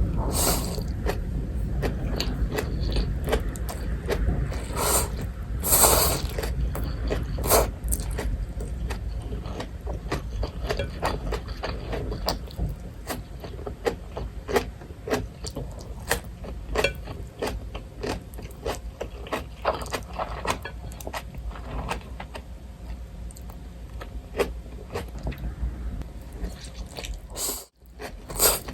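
Close-up eating sounds: chewing and biting with scattered crunches and clicks, and utensils scraping and clinking against a dish. The sound cuts out for a moment near the end.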